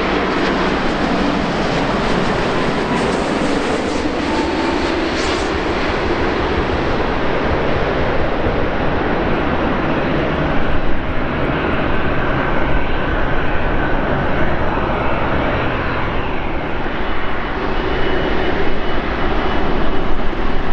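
Boeing 787-9 jet engines on approach and landing: a steady rush of jet noise that grows somewhat louder and rougher about ten seconds in, around touchdown.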